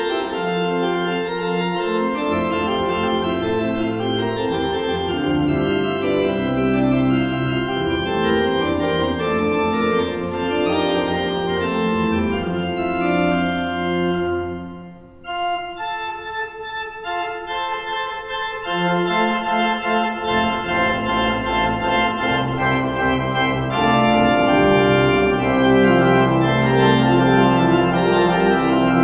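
Pipe organ played from a multi-manual console with pedalboard: sustained chords, with a short break about halfway through before the playing resumes. Deep pedal bass notes come in soon after, and the organ grows louder towards the end.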